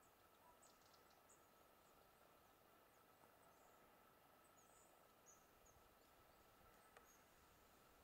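Near silence, broken by faint, very high, thin short calls of a goldcrest, a few scattered notes now and then.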